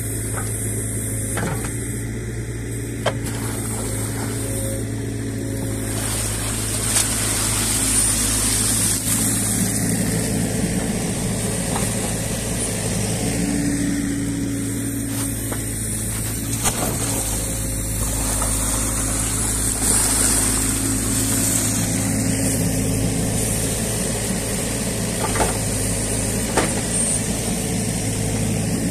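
New Holland Kobelco E50.2 mini excavator's diesel engine running steadily while the boom and ditch-cleaning bucket work, with a few short sharp knocks spread through.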